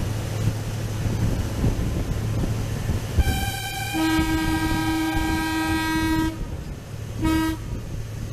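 Sri Lanka Railways Class W3 diesel locomotive's horn sounding a long two-tone blast, the higher note first and the lower note joining a second later. A short blast follows near the end, over the steady hum of the running locomotive.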